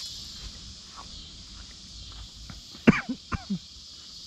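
Steady high insect chorus. About three seconds in, a person gives three short coughs.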